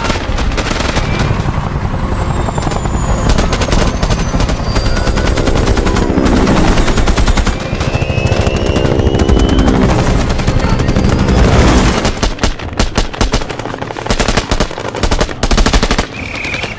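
Battle-scene film soundtrack of sustained automatic rifle and machine-gun fire, the shots rapid and overlapping. From about two-thirds of the way in, the fire breaks into separate loud bursts with short gaps between them.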